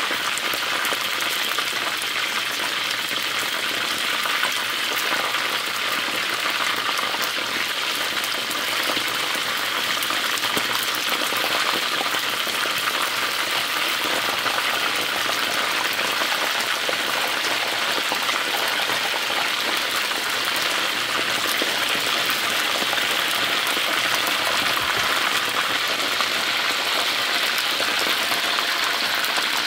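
Chicken wings frying in hot oil: a steady, dense sizzle with fine crackling.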